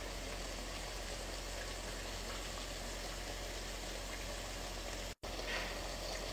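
Steady hiss of background noise with a low hum, cut off for a split second about five seconds in and then resuming.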